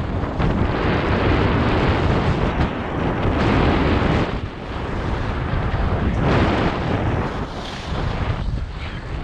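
Wind buffeting the microphone of a skier's action camera, mixed with skis scraping and hissing over groomed snow on a downhill run. The noise is loud and swells and eases several times.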